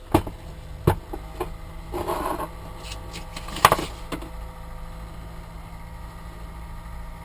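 Small PC cooling fans running with a steady hum, broken by a few sharp knocks and clicks from handling, the loudest about three and a half seconds in.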